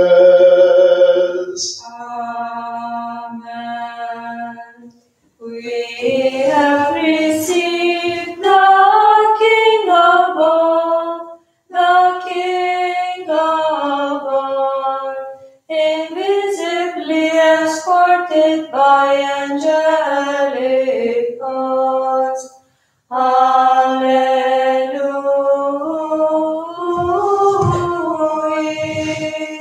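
Unaccompanied Orthodox liturgical hymn sung by a small choir, in long, slowly moving phrases broken by a few short pauses.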